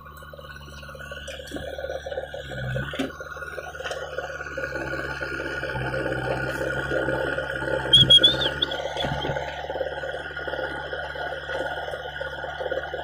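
JCB 3DX backhoe loader's diesel engine running under load with a steady hydraulic whine as the backhoe arm digs and swings soil. A brief loud burst about eight seconds in.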